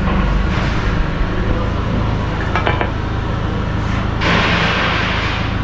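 Steady low machinery hum of a workshop, with a few light metal clinks about two and a half seconds in and a hissing burst near the end.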